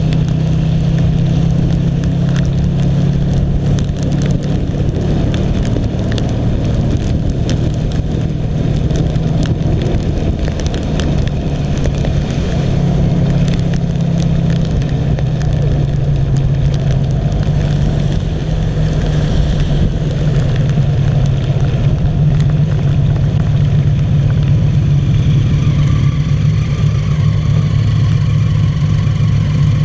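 Rewaco trike's engine running steadily as it is ridden along a wet road, with wind and rain noise on the handlebar-mounted camera's microphone.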